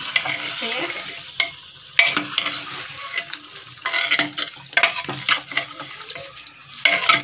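A metal ladle scraping and knocking against an aluminium pressure-cooker pot as chicken pieces are stirred into the masala gravy, over a hiss of frying. The knocks come at an irregular pace, several a second at times.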